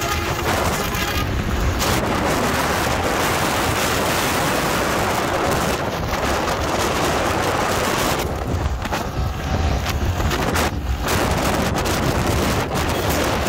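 Heavy wind rushing over the microphone, mixed with road and engine noise from a vehicle travelling at highway speed.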